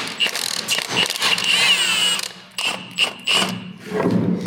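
A power tool running in short bursts among sharp metal clicks and knocks, as the bolts and universal joints come off a tractor's driveline yokes.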